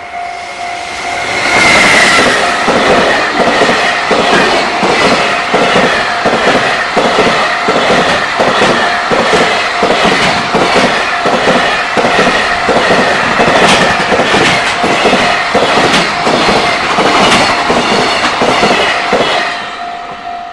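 A long container freight train passing close at speed, loud, its wheels clattering in a regular rhythm over the rail joints; it arrives about a second and a half in and fades near the end. A level-crossing bell rings steadily underneath.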